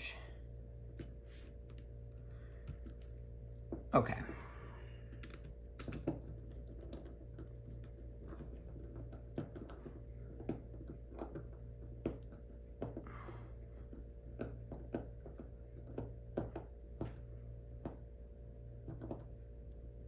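Scattered light clicks and taps from a plastic twist-lock power connector and its wires being handled and worked, over a steady low hum.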